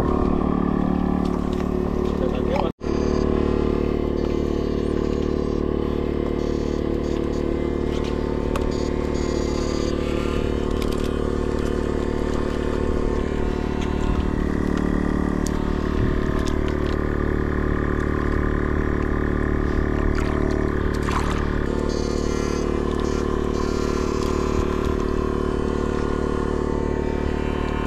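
Steady machine hum made of several constant tones, unchanging throughout, cutting out for an instant about three seconds in.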